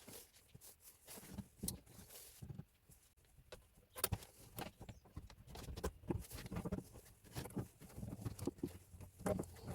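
Irregular clicks, knocks and clinks of hand tools and metal parts being handled while the engine is taken apart.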